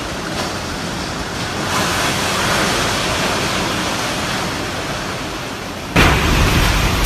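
Typhoon-force wind blowing in a steady rush of noise that swells about two seconds in. Near the end it switches abruptly to a louder, low buffeting of wind on the microphone.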